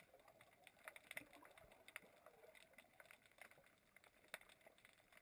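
Near silence underwater, with faint, irregular clicks and crackles. The two slightly louder clicks come about a second in and past four seconds.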